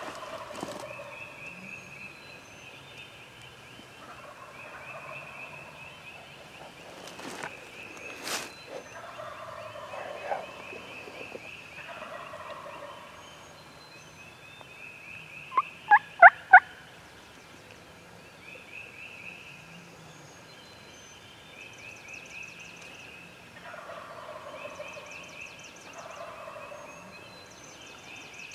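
Wild turkey gobblers gobbling again and again, each gobble a rattling call about a second and a half long, over steady songbird chirping. About halfway through, four loud, sharp calls close by in quick succession.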